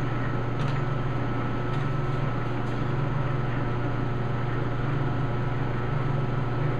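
Metal lathe running at a slow spindle speed for knurling, a steady low hum, with a few faint ticks in the first three seconds.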